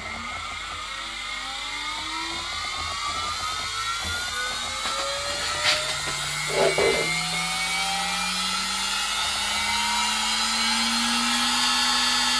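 Air-cooled CNC router spindle motor spinning up under manual control, a whine that climbs slowly in pitch and levels off near the end. The long run-up comes from a spindle acceleration setting that is still low. A couple of brief knocks sound about halfway through.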